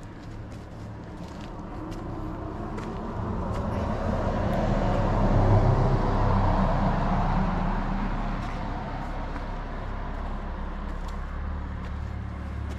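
A car driving past, growing louder to a peak about halfway through and then slowly fading.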